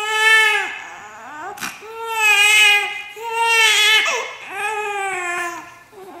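Infant crying in four drawn-out wails, each about a second long, with short breaths between them.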